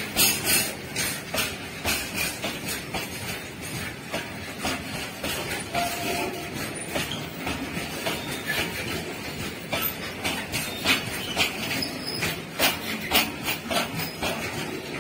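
Loaded BOXN HL open freight wagons rolling past close by: steel wheels clattering on the rails with a steady rumble and irregular clicks and knocks, heaviest about the start and again around eleven to thirteen seconds in.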